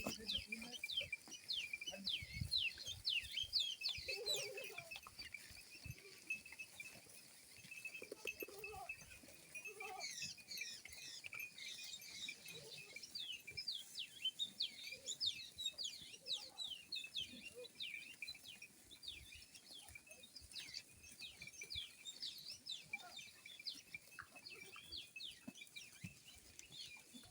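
Goats bleating now and then against a steady chorus of small birds chirping in quick, falling notes.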